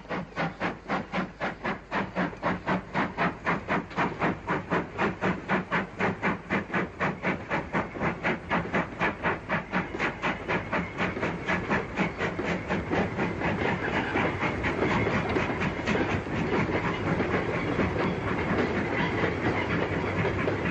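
BR Britannia Pacific steam locomotive working a train of empty coal wagons, its exhaust beating evenly at about three to four beats a second. The beats gradually quicken and, over the last several seconds, blur into a louder continuous rush.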